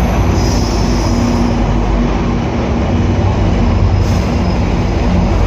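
GO Transit bilevel push-pull train passing close by: a steady rumble of coaches on the rails with a low drone underneath. A faint high wheel squeal is heard in the first second or so.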